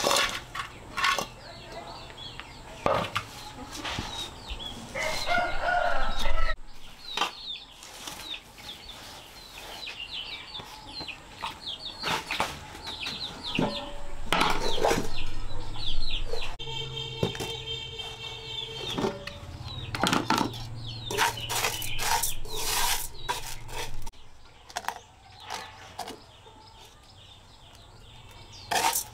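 Chickens: many short, high chick peeps and hen clucks, with a longer held call about two thirds of the way through, among scattered knocks and rustles.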